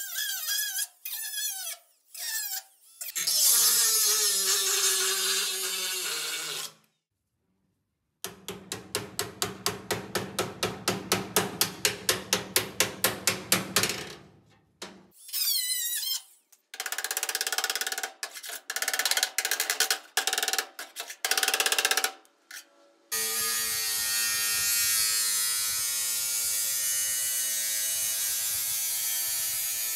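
Metalwork on a patch-welded steel body panel of a 1965 VW Beetle. A small cordless grinder spins up in short bursts and grinds the weld seam. A body hammer then strikes the panel about three times a second for several seconds, more short grinder bursts follow, and a Milwaukee angle grinder grinds steadily through the last seven seconds.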